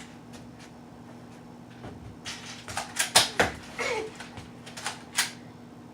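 A quick string of sharp plastic clacks and knocks from Nerf blasters being worked and fired, starting about two seconds in and loudest around three seconds in, over a faint steady hum.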